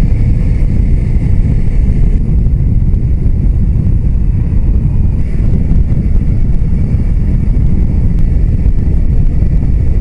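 Loud, steady wind rush buffeting the microphone on a Suzuki GSR250 motorcycle ridden at road speed, a dense low rumble that drowns out the engine.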